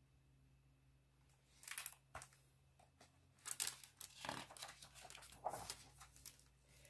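Paper pages of a hardback picture book rustling as they are handled and turned: a brief rustle about two seconds in, then a longer run of rustling and flapping.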